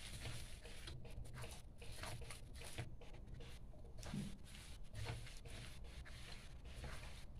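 Spatula scraping and tossing stir-fry vegetables and sliced meatballs around a wok, with quick, irregular scrapes and clicks over a low steady hum.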